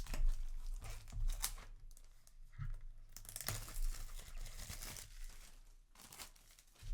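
A trading-card display box's packaging being torn open by hand, tearing and crinkling in irregular bursts.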